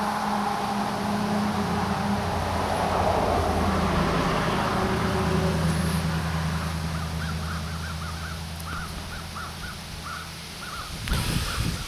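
A passing motor vehicle's engine hum, fading away over the first several seconds. Then a bird calls in a quick run of short chirps, about three a second, with a brief knock or rustle near the end.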